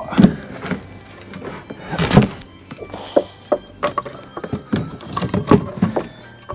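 A run of irregular knocks and thunks on wood, some in quick succession, over background music.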